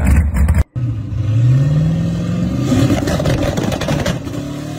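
A Dodge Challenger R/T's engine rumbles deep and loud, then cuts off abruptly under a second in. A Pontiac GTO drag car follows, accelerating hard, its engine pitch rising steadily and then rising again near the end.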